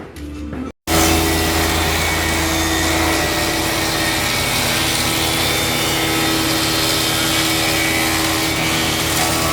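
Casadei 630 thicknessing planer running: a loud, steady rush of cutterhead and motor noise with a held hum. It starts suddenly about a second in, after a moment of music.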